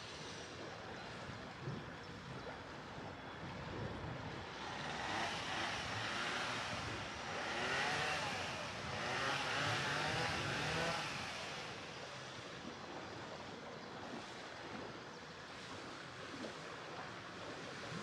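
Boat under way on calm water: a steady wash of water and motor noise, with a louder rushing noise that swells from about four seconds in and fades again by about eleven seconds.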